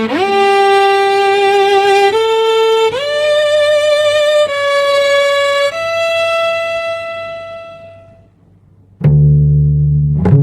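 Slow instrumental music of long held notes, sliding up into each new note, some with vibrato. It fades away about eight seconds in, and a loud low note comes in suddenly about a second later.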